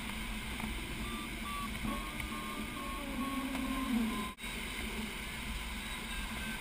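Glider's audio variometer giving a series of short, evenly spaced beeps for a few seconds, over a steady rush of airflow in the cockpit.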